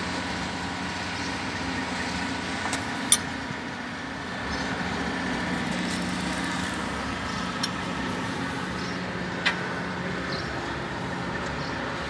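A steady engine hum runs throughout, with a few short sharp metallic clinks from the steel pipe and its bolted flange being handled; the loudest clink comes about three seconds in.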